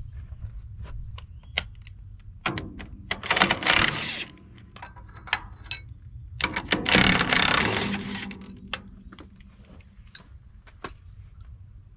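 Metal hand tools clinking and clattering as they are rummaged through, with scattered sharp clicks and two longer, louder spells of rattling, about two and a half and six and a half seconds in.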